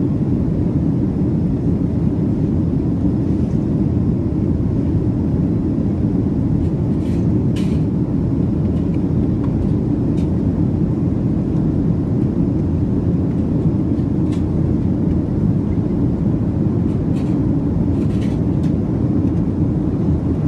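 Steady low roar inside a Boeing 737's cabin in flight: engine and airflow noise. A few faint clicks are heard now and then.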